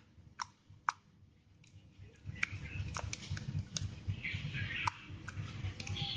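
Green glitter slime being squeezed and poked by hand, giving a few sharp separate clicks and then, from about two seconds in, a denser run of small pops and wet crackling.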